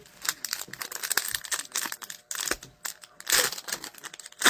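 A hockey card pack's wrapper crinkling and tearing, with a quick run of small crackles and a louder rustle a little past three seconds in, as the pack is ripped open and the cards handled.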